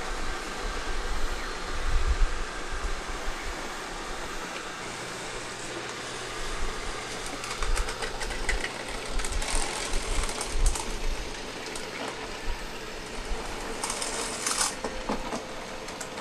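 Roborock S7 robot vacuum driving and manoeuvring onto its self-empty dock: a steady whir of its small motors, joined by a low hum about five seconds in, with sharp clicks around ten seconds in and again near the end as it mounts the dock.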